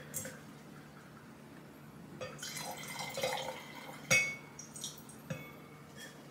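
Glass wine bottle handled at the kitchen counter: faint liquid sounds and a few light glass clinks and knocks, the sharpest about four seconds in.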